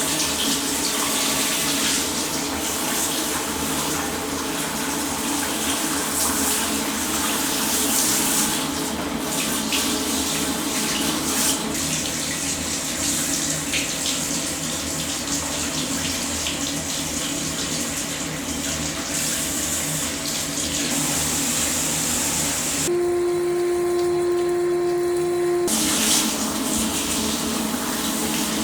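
Hot water running steadily from a tap and rinsing through an electrostatic furnace filter. About three seconds before the end, the water sound cuts out and a steady hum takes its place, then the water sound returns.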